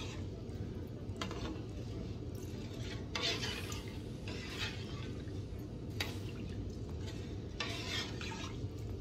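A long-handled metal spoon stirs washed rice through water in a large aluminium pot, in several short swishing, scraping strokes against the pot. This is the rice water being mixed with the salt and oil just added. A steady low hum runs underneath.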